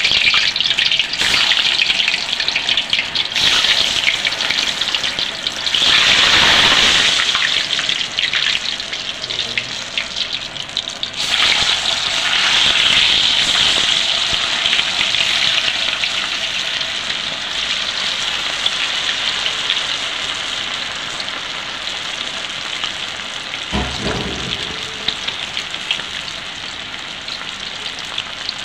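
Chicken pieces wrapped in potato deep-frying in hot sunflower oil in an iron wok: a loud, steady sizzling hiss that swells twice in the first half and slowly eases toward the end. A brief low knock comes near the end.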